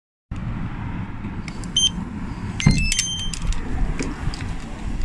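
Keys and a key fob on a lanyard jangling as the fob is held to a door access-control reader, which gives several short electronic beeps about two to three seconds in; the door is then pulled open by its handle.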